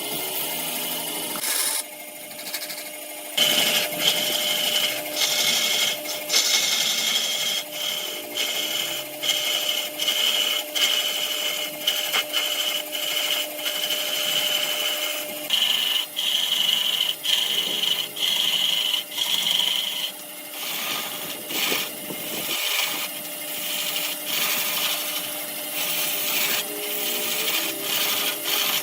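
Wood lathe running while a turning tool cuts into the spinning wood: a steady scraping hiss over a constant machine whine. The cut breaks off and resumes about once a second.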